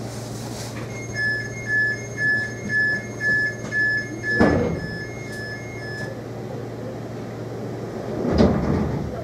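Class 230 D-Train door-closing warning: a two-tone beep repeating about twice a second for about five seconds, with the sliding doors shutting in a thud about halfway through. A steady low hum of the train standing runs underneath, and a second, longer rumble comes near the end.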